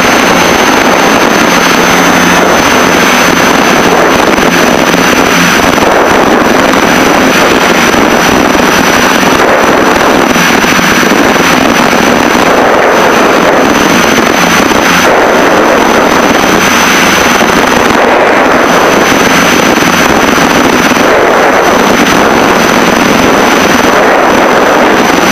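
Loud, steady cabin noise of a Piper Seneca twin-engine piston aircraft in flight, the engines and propellers at added power for a steep turn, mixed with airflow over the cockpit. A thin, high, steady whine runs through it.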